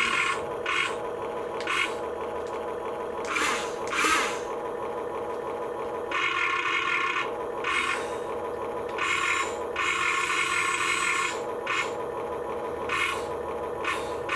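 Small electric gear motors of a toy-grade RC Caterpillar construction vehicle whining in many short bursts and two longer runs as its functions are worked. Under them a steady electronic engine-sound hum runs from the toy's built-in sound effect.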